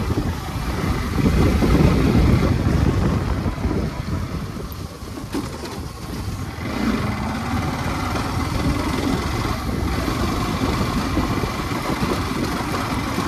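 Motorcycle engine running during a ride, with a heavy low rumble of wind on the microphone that is strongest in the first few seconds, then settling to a steadier engine sound.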